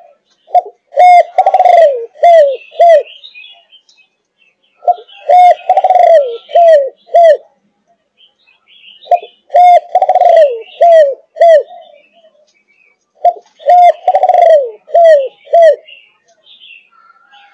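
Malaysian-strain spotted dove, 5.5 months old, cooing in the thúc gù style: four phrases about four seconds apart, each a quick run of five or six short low coos with one longer, falling note in the middle.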